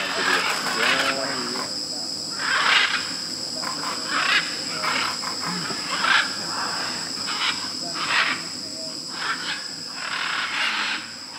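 A flock of macaws giving harsh, rasping squawks at irregular intervals, about one call a second. Under them runs a steady high-pitched insect drone from the rainforest.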